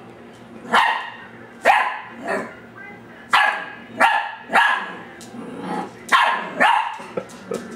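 Ten-week-old dachsador puppy (half Labrador, half dachshund) barking at her own reflection in a glass door: about eight short barks at irregular intervals, roughly half a second to a second apart.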